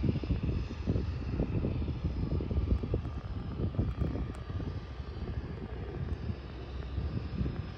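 Engine of a Harbour Air de Havilland Otter floatplane, a turbine-converted DHC-3, running steadily as it taxis on the water, heard at a distance. Gusty wind rumbles on the microphone over it.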